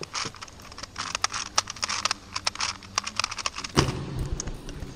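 Rubik's Clock being speed-solved: a rapid run of sharp clicks as its pins are pushed and its wheels spun. About four seconds in, a loud knock as the clock is set down and the hands slap the Speed Stacks timer pads to stop it.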